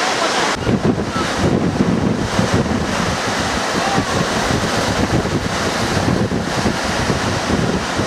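Ocean surf breaking and washing ashore, with wind buffeting the microphone in uneven low gusts from about half a second in.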